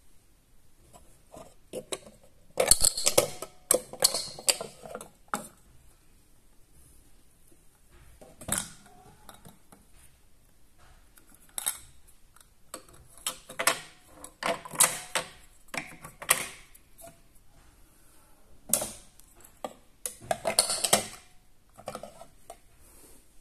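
A wooden toy kitchen's fridge being worked by hand: several bursts of clicking and clattering from its door and toy ice dispenser, with a metal cup knocking in the dispenser slot.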